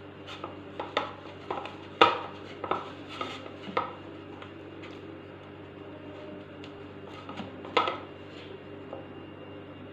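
Flour dough being kneaded by hand in a ceramic bowl: irregular clacks and knocks of the hand and bowl against the ceramic and the counter, busiest over the first four seconds, then softer squishing and rubbing with one more knock later on.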